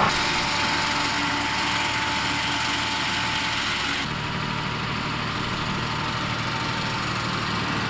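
Engine of the machine spreading fertilizer running steadily as it moves off, its sound changing abruptly about four seconds in.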